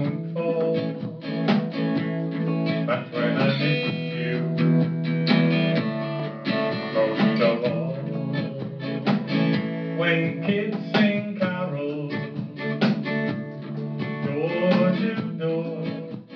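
A man singing to his own strummed acoustic guitar, a live song with a steady strumming rhythm under the vocal line.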